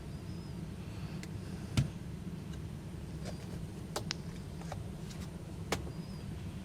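State gas water heater's main burner running after relighting, a steady low rumble. Three sharp clicks or knocks sound over it, the loudest about two seconds in.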